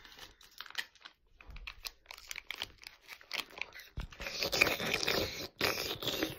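Close-miked crunching and crackling: a dense run of small crackles that grows loudest about four to five and a half seconds in.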